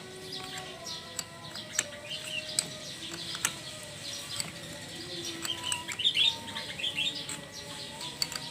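Small birds chirping repeatedly, with scattered sharp light clicks and taps throughout.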